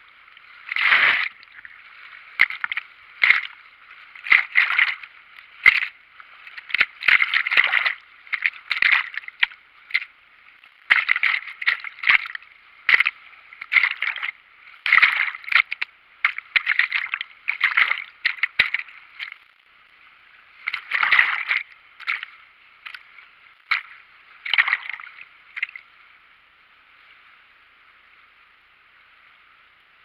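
Turbulent river water sloshing and splashing over an action camera at the water surface, in irregular splashes about once a second. From about 26 seconds in, only a steady faint rush of water remains.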